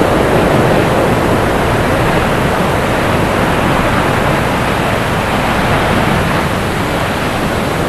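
Ocean surf: a steady, even rush of breaking waves.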